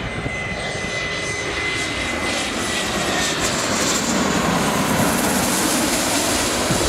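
Business jet flying low overhead on its landing approach: a high turbine whine that drops slightly in pitch as it passes, under a jet rush that grows steadily louder.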